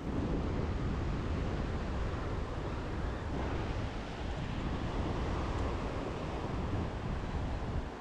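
Strong wind rumbling and buffeting on the microphone, over a steady wash of surf.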